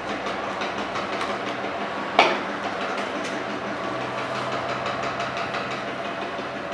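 Heavy hand-spun potter's wheel turning on its pivot: a steady rumble with faint clicking and rattling. About two seconds in there is one short, sharp sound that drops quickly in pitch.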